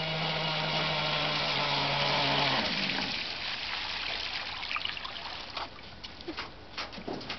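FSR-V model engine running at a steady speed over a hiss of water, then cutting out about two and a half seconds in; the engine has carburetion problems. Afterwards only water hiss and small scattered clicks remain.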